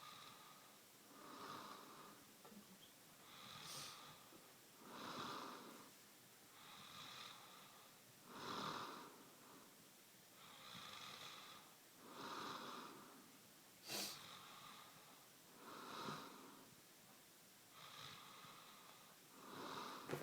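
A man snoring softly in a steady rhythm, about one breath every three and a half seconds. Each breath is a pair of sounds, a thinner one followed by a fuller, louder one. A single sharp click comes about two-thirds of the way through.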